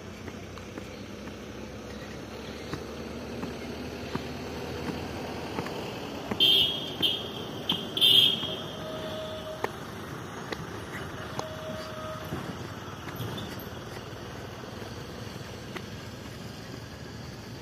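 Outdoor ambience: a steady noisy hiss with scattered faint ticks, broken about six to eight seconds in by three short, loud, high-pitched sounds, and later by two brief mid-pitched tones.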